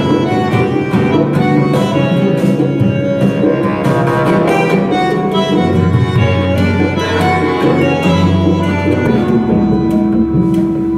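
Recorded music with strings and percussion playing loud over a high-end stereo system: AudioMachina Maestro GSE loudspeakers driven by Einstein tube amplifiers, fed from a TechDAS Air Force One turntable.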